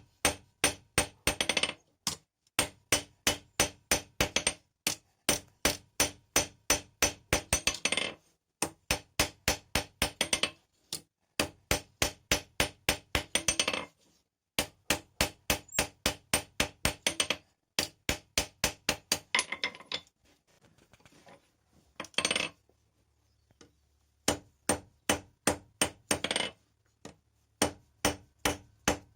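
Blacksmith's hand hammer striking hot steel on an anvil in quick runs of ringing blows, about four to five a second, with short pauses between runs and a longer pause of a few seconds past the middle.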